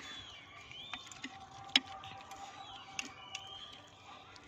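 A spoon clinking against a dish a few times, the sharpest clink a little under two seconds in, with faint high chirps behind it.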